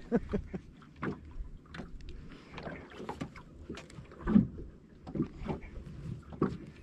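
Scattered knocks and handling noises on a small fishing boat on the water. The loudest is a thump a little past four seconds in.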